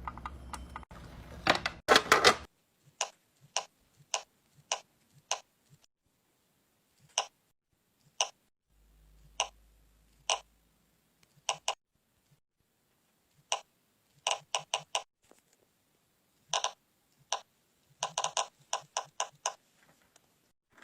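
Sharp plastic clicks of a fidget toy being pressed, sometimes one at a time and sometimes in quick runs of several, with near silence between them.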